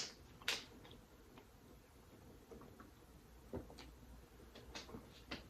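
Faint eating sounds during a seafood pasta meal: a few scattered sharp clicks and small soft squishes. The sharpest click comes right at the start, another about half a second in, and a few fainter ones near the end.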